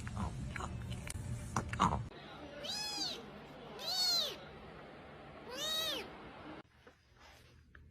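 A cat meowing three times, each call rising and then falling in pitch. The meows follow about two seconds of clicks and knocks.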